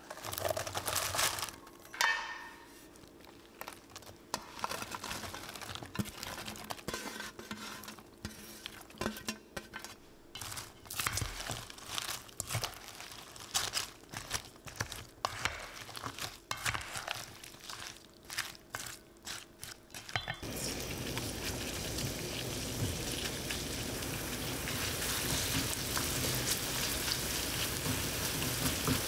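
Kitchen work: scattered clicks and knocks of utensils and dishes for about twenty seconds, then a steady hiss that starts suddenly and grows slightly louder.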